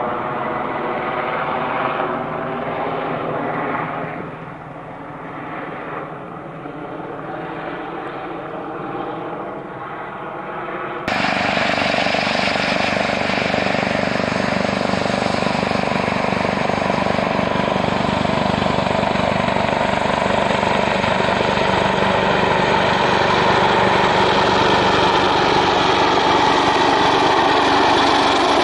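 Airbus H225M Super Cougar twin-turbine helicopter in flight, its main rotor and turbines running steadily. For the first third it sounds duller as it flies overhead, dipping briefly. About 11 seconds in the sound switches abruptly to a louder, fuller rotor and turbine sound as the helicopter approaches close by.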